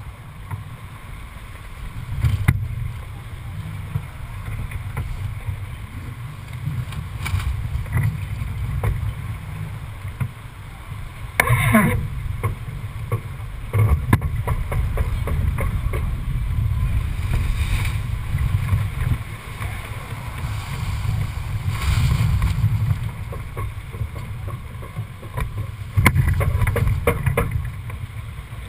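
Wind buffeting the microphone aboard a Dufour 45e yacht racing under sail, with water rushing along the hull. A few sharp knocks come through, and a brief falling squeal near the middle.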